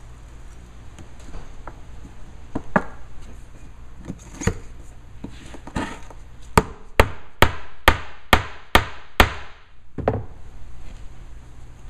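Mallet striking the top of a metal ram driven down a tube on a spindle-and-ram press: a few scattered knocks, then seven sharp blows about two a second, each ringing briefly.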